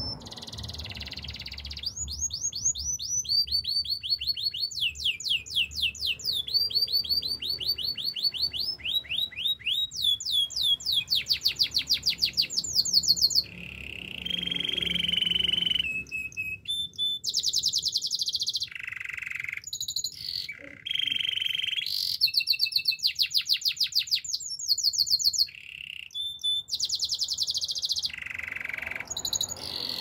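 Canary singing a long song made of phrases of fast, rapidly repeated notes, some high and falling, others lower and steadier, changing from one phrase to the next with short breaks between.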